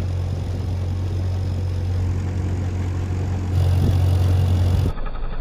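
Dinghy outboard motor running at a steady speed, a low even hum that gets louder about three and a half seconds in and cuts off abruptly near the end.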